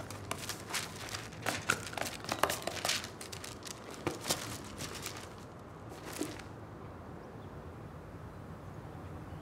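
Photo album pages and photographs being handled: a quick run of paper-and-plastic rustles and crinkles for the first few seconds, a few more scattered after, then quiet room tone.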